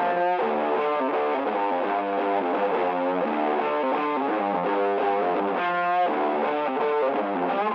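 Background music: a guitar track with distorted guitar chords changing in a steady rhythm.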